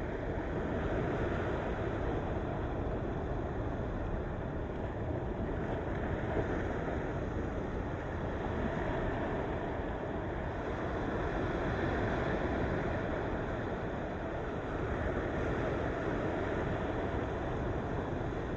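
Ocean waves washing on the shore in a steady rush, swelling and easing gently.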